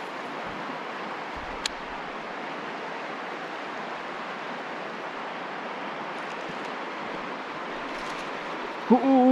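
Steady rush of flowing river current, an even hiss with no rhythm. Right at the end a person's voice starts on held notes, like humming.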